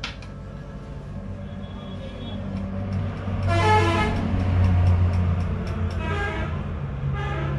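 Passing street traffic: a motor vehicle's engine rumble swelling louder through the middle, with short horn toots about three and a half seconds in and again near the end.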